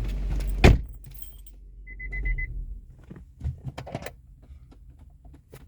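A loud click, then a short run of rapid high beeps from the car's warning chime and scattered light clicks and jingles of keys being handled, as a start is tried on a 2007 Infiniti G35 that will not crank because of an immobilizer (security) fault.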